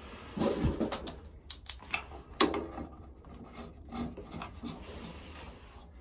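Scattered knocks and clinks of tools and pipe fittings being handled at a water heater's gas valve, the loudest knock about halfway through.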